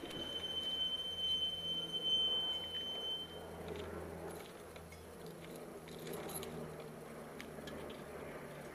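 BMW K-series motorcycle engine idling with a low, steady hum, while a steady high-pitched electronic beep sounds for about the first three and a half seconds and then stops.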